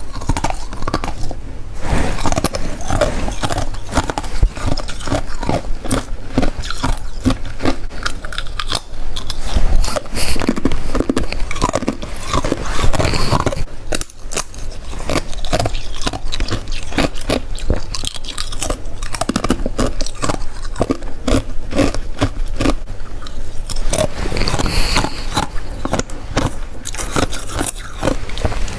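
Biting and chewing of white freezer frost close to the microphone: a dense run of crisp, icy crunches, one bite after another.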